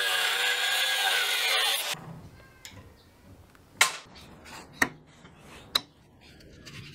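Angle grinder with a cut-off disc running and cutting through the end of a steel flat bar, a loud steady whine that stops abruptly about two seconds in. Then three sharp knocks about a second apart.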